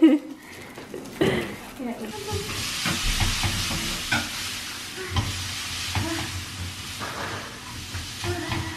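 Noodles sizzling as they fry in a wok on a gas stove, stirred with a spatula that knocks and scrapes against the pan now and then. The sizzle swells about two seconds in.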